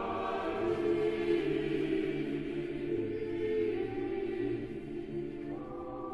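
A choir singing slow sacred music, holding long notes; a higher line of voices comes in near the end.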